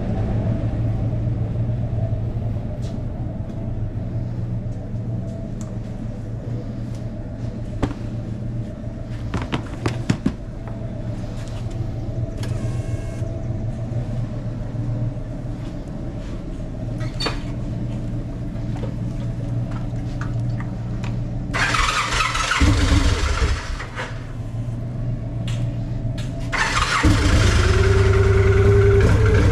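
Motorcycle V-twin engine running steadily at idle, with a loud burst of noise a little past the middle and a louder, steadier noise with a higher pitched tone setting in near the end.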